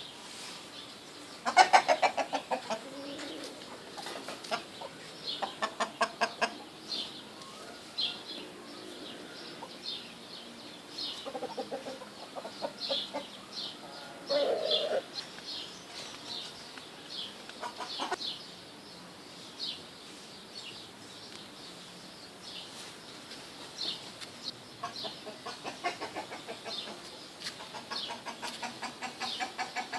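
Chickens clucking in quick runs, the loudest about two seconds in, with many short high chirps from small birds throughout.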